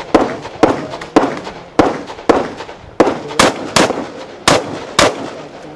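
Rapid gunfire during a timed practical-shooting stage: about ten shots, roughly two a second, each with a short echo.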